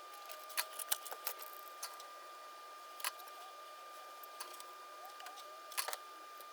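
Scattered light clicks and taps of small plastic parts and wires being handled during bench work on a prop, a cluster in the first second or so and a sharper double click near the end, over a faint steady high-pitched tone.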